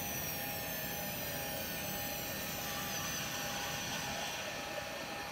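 FM30C automatic-tool-change spindle on a CNC machine running with a steady whine, its high overtones slowly falling in pitch.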